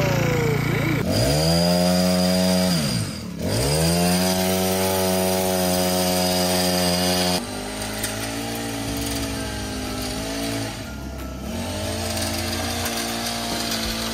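Petrol pole hedge trimmer engine running at high revs, the throttle dropping off and picking straight back up twice in the first few seconds. About halfway through it settles to a lower, quieter, steady running.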